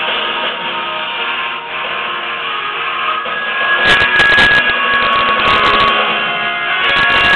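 Karaoke machine backing track playing an instrumental interlude with guitar. The band fills out and gets louder, with sharp drum-like hits, about four seconds in.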